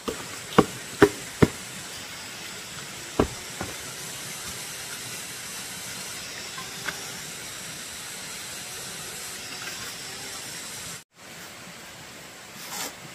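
Three sharp knocks in quick succession, then a fourth about two seconds later and a lighter one just after, over a steady hiss.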